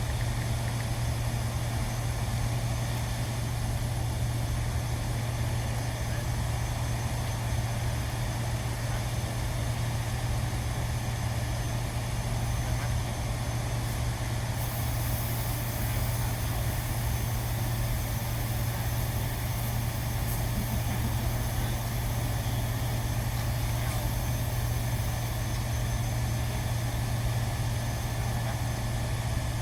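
Steady low hum of running machinery, unchanging in level.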